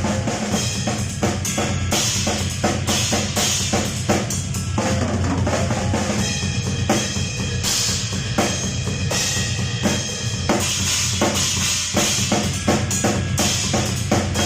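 Drum kit played in a steady, busy groove on Vansir Power series cymbals: rapid drum and cymbal strikes, with bright cymbal crashes washing over the beat every few seconds.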